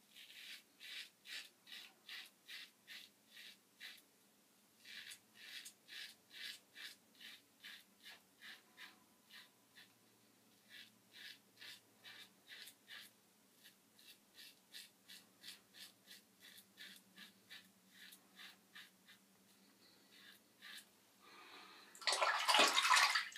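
Merkur Slant safety razor with a carbon steel blade scraping through lathered stubble: short rasping strokes about three a second, in runs with brief pauses. Near the end comes a louder, longer rush of water.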